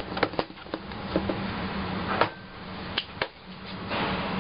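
Scattered light taps and clinks of a spoon against glass cups and kitchen containers while drink powders are portioned out, about half a dozen in all. The loudest comes a little past two seconds in, then two close together about a second later. A steady low hum runs underneath.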